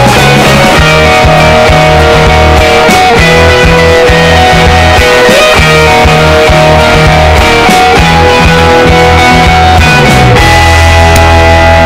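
Loud rock music with guitar over a steady pulsing bass line.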